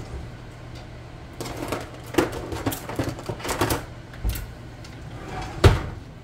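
Kitchen utensils clattering as a spoon is fetched: a run of quick clicks and knocks, then one louder knock near the end, over a steady low hum.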